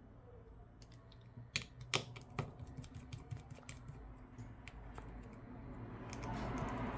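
Light, irregular metallic clicks and taps of a small screwdriver and tiny screws being worked out of a smartphone's frame and handled during disassembly.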